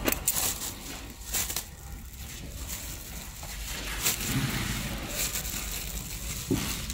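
Clear plastic film crinkling and rustling in irregular crackles as it is handled and wrapped around bundled cable ends.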